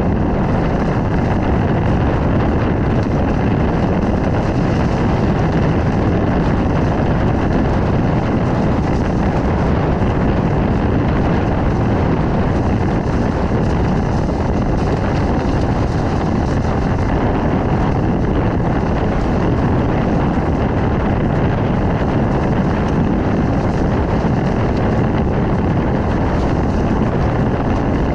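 Steady rush of wind on the microphone mixed with water and spray rushing past the hulls of a Hobie Tiger catamaran sailing fast, at about 16 to 19 knots.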